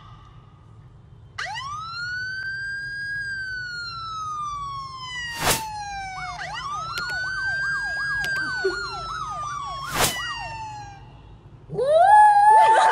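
Siren sound: a long wail that climbs and then slowly falls, followed by a fast yelping warble, with two sharp clicks along the way. Near the end a small white dog howls along, a loud rising howl that is the loudest sound here.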